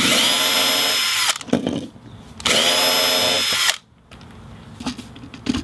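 Cordless drill running in two bursts of about a second each, a second or so apart, with a steady whine, drilling pilot holes into quarter-inch ABS plastic.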